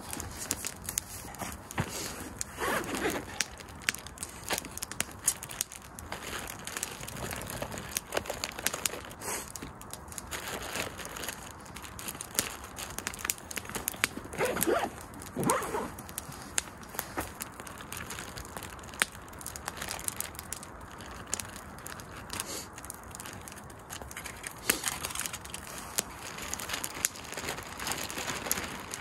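Wood campfire crackling with frequent small snaps, with a couple of louder rustles about three seconds in and around fifteen seconds. Near the end, aluminium foil is crinkled as it is unfolded.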